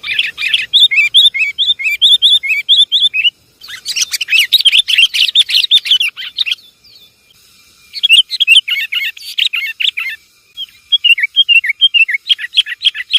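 Sooty-headed bulbuls (kutilang) chattering in bursts of rapid, excited chirps, separated by short pauses. This is a noisy lure call used to draw the birds in.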